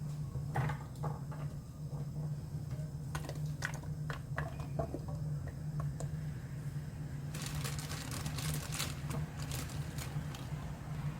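Light clicks and taps over a steady low hum, with a quick run of many small clicks about seven to nine seconds in.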